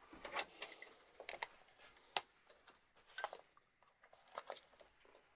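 Faint handling noises: a scatter of light clicks and small knocks, the sharpest about two seconds in.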